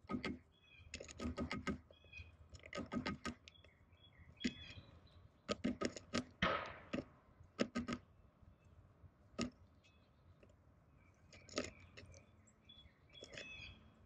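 Tufted titmouse pecking at seed on a feeder tray: bursts of rapid tapping clicks every second or two, with faint short bird chirps between them and a brief rustle a little past the middle.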